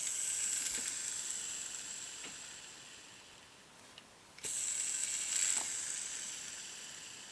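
Johnny Morris Signature Series JMG10HA baitcasting reel, freshly fitted with Boca orange-seal bearings, spinning freely with a high whir that slowly winds down. It is set spinning twice, the second time about four and a half seconds in. The long, even run-down is the sign of smooth new bearings, described as really nice.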